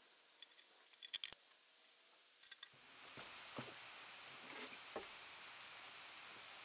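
Sharp little metal clicks from fittings being handled on the compressor pump, then a few faint soft bumps as a heavy electric motor is set down on its rubber-padded mounting plate.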